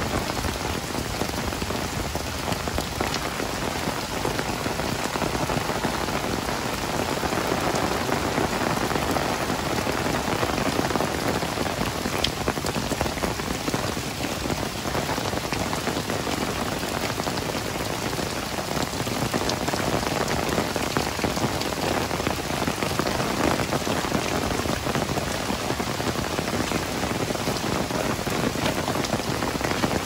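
Heavy rain falling steadily: a dense, even hiss of rain hitting hard surfaces, with single drops ticking through it.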